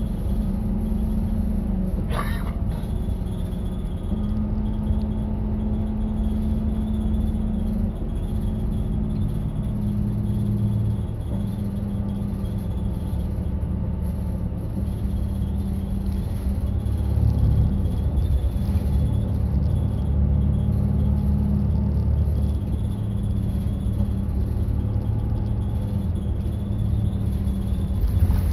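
Route bus driving, heard from inside the cabin: a steady engine drone with road rumble, its pitch shifting a little around the middle as the engine speed changes. A single sharp knock or rattle comes about two seconds in.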